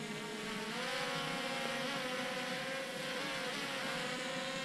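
Yuneec Mantis Q quadcopter's motors and propellers buzzing in flight: a steady whine that rises in pitch about a second in and wavers briefly as the motor speeds change.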